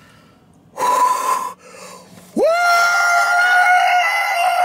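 A man's excited yelling: a short loud cry about a second in, then a long, high whooping scream of joy that sweeps up in pitch and holds steady.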